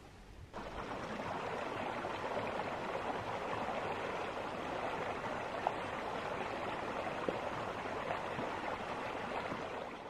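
Small creek flowing: a steady rush of running water that comes in about half a second in.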